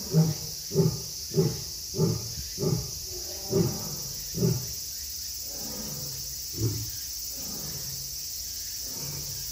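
Male lion grunting: a series of short, deep grunts about two-thirds of a second apart, spacing out and weakening, with a last single grunt near seven seconds in, the tail of a roaring bout. Steady high insect drone throughout.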